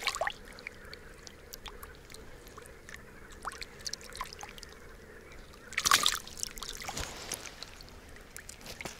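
Small splashes and trickling in shallow water as a hand releases a crucian carp, with a louder splash about six seconds in.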